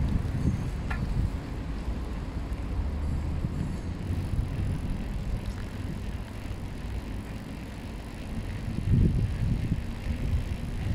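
Low rumble of riding a bicycle on city streets, wind buffeting the microphone with tyre and road noise, swelling about nine seconds in.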